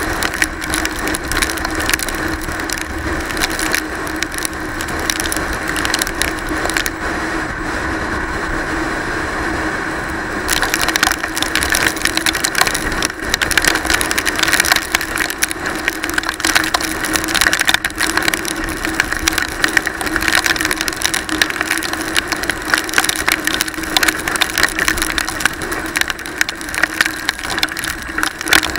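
Rush of wind and crackling spatter of rain on a motorcycle-mounted camera while riding in heavy rain, with the motorcycle's engine running steadily underneath as a low, even hum.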